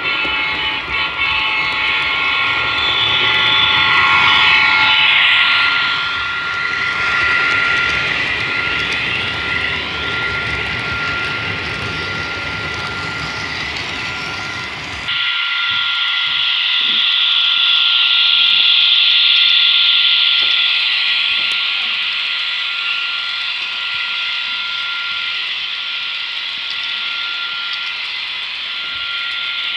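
HO-scale Walthers SD70ACe model locomotive's DCC sound decoder playing a diesel locomotive engine through its small onboard speaker, with the horn sounding for the first several seconds. About halfway through the sound changes abruptly to a thinner, higher-pitched running sound with faint clicks from the model's wheels on the track.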